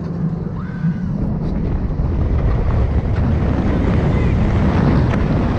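Wind rushing over the camera microphone as the Mako hyper coaster train drops down its first hill, getting louder from about two seconds in as the train picks up speed.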